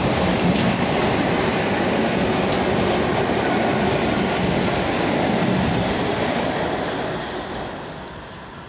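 Electric commuter train passing close by at speed: a steady rumble of wheels on rails with the clatter of rail joints. It fades from about seven seconds in as the last car pulls away.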